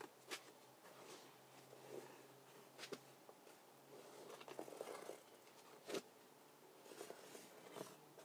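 Near silence, with faint rustling and a few soft taps from gloved hands pressing and smoothing a ribbed rubber floor mat into place, over a faint steady hum.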